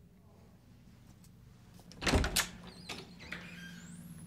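A wooden apartment door being unlocked and opened: a loud clack of the lock and handle about halfway through, then a few lighter clicks and a short rising squeak as the door swings open.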